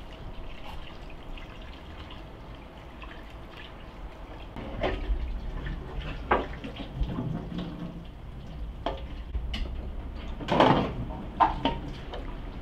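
Tap water running into a stainless-steel sink during washing up, with metal clatters from a perforated colander and a metal tray knocking against the sink, loudest a little past halfway.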